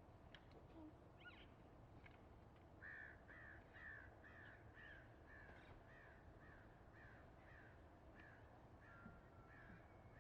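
Faint bird calling outdoors: a few scattered chirps, then from about three seconds in a steady series of short, falling notes repeated about twice a second.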